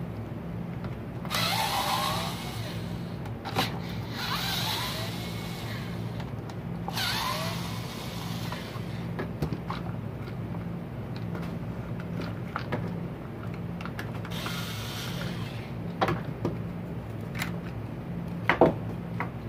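Small Ryobi cordless drill-driver whirring in several short runs, its whine rising in pitch as it backs screws out of the trimmer's plastic housing. Sharp clicks of screws and plastic parts being handled come in between, the loudest near the end, over a steady low hum.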